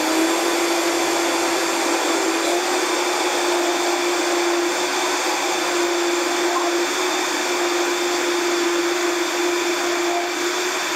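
High-speed countertop blender running steadily at full speed, puréeing a thick raw-cake filling of soaked cashews, blueberries and beetroot juice: a steady motor whine over a loud rushing noise.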